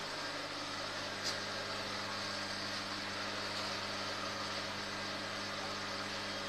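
Steady machine hum with an even hiss from the aeration and water equipment running the fish tanks, with one faint click about a second in.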